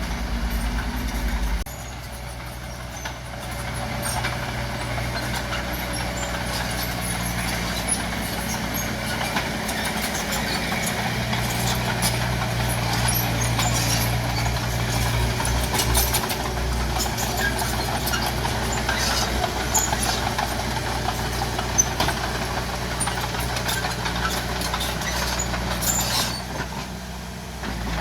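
Diesel engine of a heavy earthmoving machine running, growing stronger for a few seconds in the middle, with scattered short knocks and clanks. There is a brief dip in level about two seconds in and another near the end.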